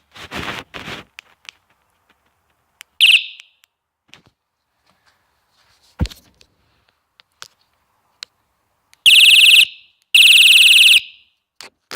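Battery-powered electronic multi-tone bike horn sounding three shrill blasts: a short one about three seconds in, then two longer ones of about a second each near the end. A single knock falls between them.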